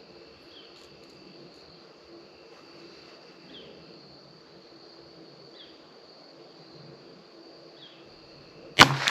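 A single .22 LR rifle shot from a CZ 457 bolt-action near the end, sharp and by far the loudest sound, with a short ringing tail. Before it, several seconds of quiet with a faint steady high whine and soft chirps about every two seconds.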